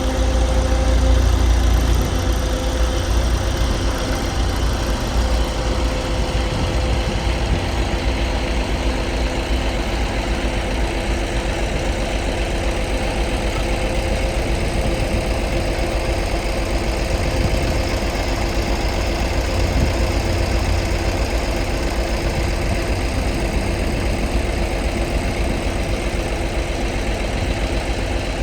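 11-ton, 84-inch-wide Bomag padfoot compactor running, its diesel engine a steady low drone with a steady whine above it. It is a little louder in the first couple of seconds.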